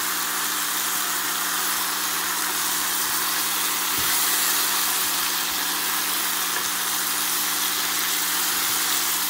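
Seared oxtails coated in browning sizzling in a hot stockpot as they are stirred with a spatula: a steady hiss. A steady low hum runs underneath.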